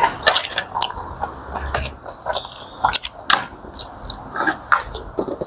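Someone eating seafood boil close to the microphone: chewing and biting, with irregular sharp clicks and crackles as the food is handled.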